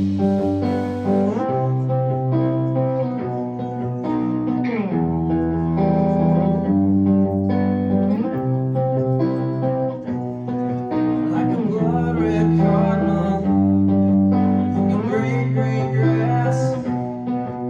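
Live rock band playing the instrumental intro of a song, led by guitar over held chords, with no vocals yet.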